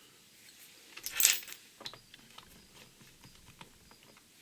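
A small hard object on the fly-tying bench set down or dropped with a sharp clink about a second in, followed by a few faint clicks.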